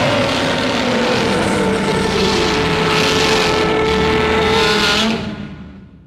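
Custom monster-roar sound effect blending Godzilla and Evangelion Unit-01 roars. One long, harsh roar with a held pitch fades away over about the last second.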